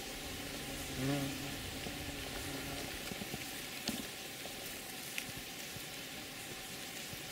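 Steady faint hiss, with a brief low hum-like voice about a second in and a couple of small sharp clicks near the middle.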